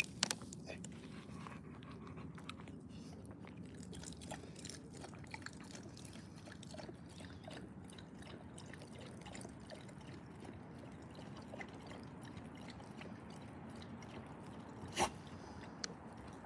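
A pit bull lapping and licking water from a plastic water bottle held to its mouth, with small wet clicks and drips. A single sharp knock near the end.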